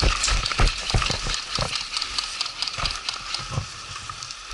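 Running footsteps on dry grass and dirt, heard from a head-mounted camera: a quick, uneven series of thuds, louder in the first half and easing off toward the end as the runner slows.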